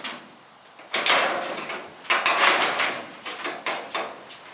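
Steel arch sections of a metal building clanking and scraping as they are handled and shifted into place: two rattling, scraping bouts, then several sharp knocks near the end.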